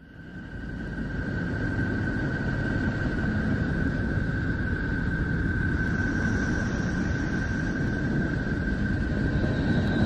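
NASA 'space sound' of Neptune: radio emissions recorded by Voyager 2 and converted to audio. It is a steady low rushing noise with one held high tone over it, fading in over the first second. A fainter, higher tone comes in about six seconds in and drops out near eight.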